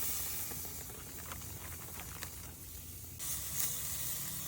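Marinated Cornish hens sizzling skin-down on a hot grill: a steady hiss with scattered crackling pops. The hiss jumps louder a little past three seconds in.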